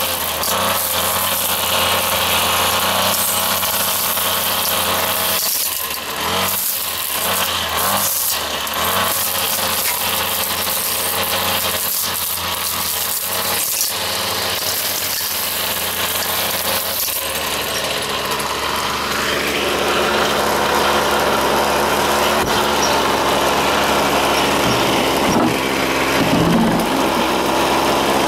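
Ryobi two-stroke full-crank string trimmer engine running at high revs with the cutting line spinning, with a few brief dips in speed. About two-thirds of the way through it eases off to a lower, steadier speed.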